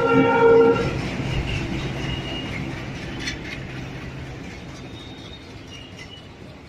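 A train horn blows briefly at the start. Then comes the rumble of a slow-moving train, fading steadily away, with a few faint high squeals from the wheels.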